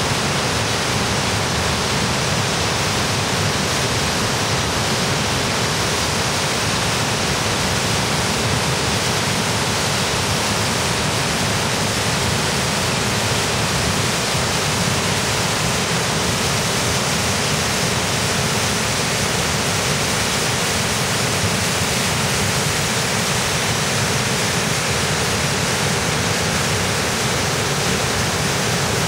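Waterfall in full flow crashing down granite rock into the pool below: a steady, loud rush of white water.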